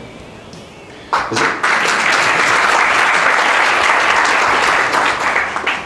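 Audience applauding, the clapping breaking out about a second in, holding steady for some four seconds and dying away near the end.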